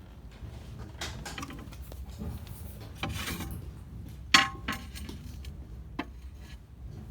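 A few small clicks and knocks from something being handled, over a low steady hum. The loudest is a sharp clack with a brief ring about four seconds in.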